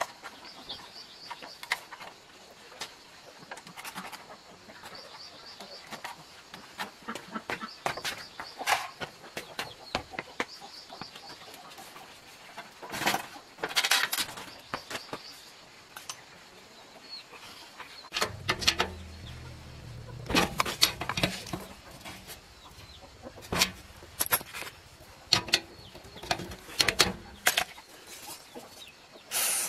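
Irregular metal clicks, knocks and scraping from hand work on a rusty steel stand and old electric motor, louder in bursts around the middle and toward the end. A bird chirps repeatedly early on, and chickens cluck in the background.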